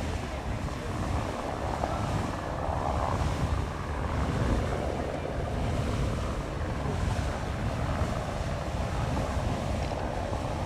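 Beehive Geyser erupting: the steady rushing noise of its water column, with wind buffeting the microphone.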